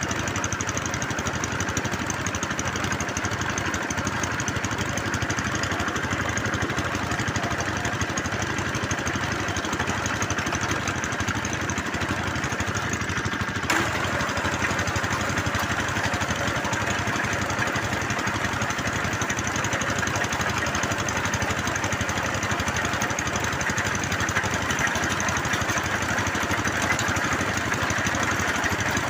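Engine of a bore well drilling machine running steadily, with a single sharp click about halfway through after which its tone shifts slightly.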